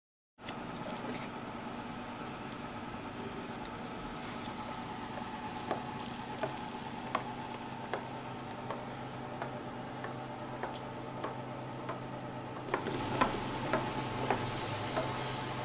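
Small battery-powered hobby motor spinning a plastic propeller, running steadily with a whir, with a light tick about every three-quarters of a second. It grows louder and rougher, with stronger ticks, about thirteen seconds in.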